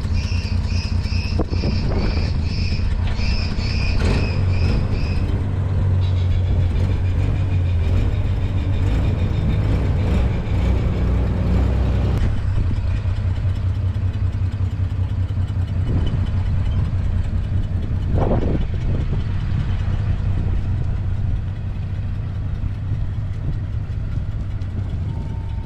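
A vehicle engine running steadily, with a rapid high repeating beep for about the first five seconds and a few short knocks.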